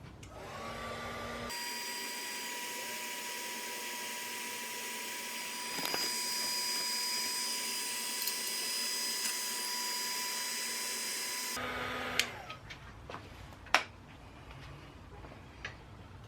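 Heat gun running for about ten seconds, a steady fan whine over rushing air, used to heat the rear sprocket's tight bolts so they will come loose. It spins up at the start and winds down near the end, followed by two sharp clicks.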